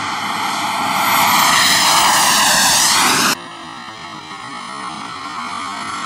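Turbine engine of a radio-controlled F-16 model jet flying past: a loud rushing whine whose pitch sweeps as it goes by, cutting off abruptly about three seconds in to a quieter, steady jet whine.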